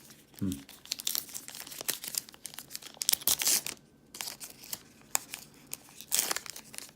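Trading cards being handled and flipped through by hand: an irregular run of dry rustles and crinkles, with a couple of louder swishes.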